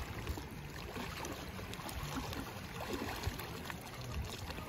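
Lake water lapping gently, heard under a low, uneven rumble.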